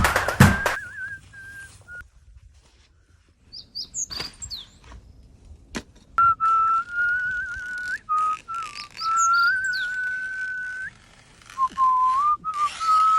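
A single clear whistle comes in about six seconds in. It holds long notes and steps between a few pitches with small warbling wobbles, with short breaks. Birds chirp high above it, a little before the whistle starts and again partway through.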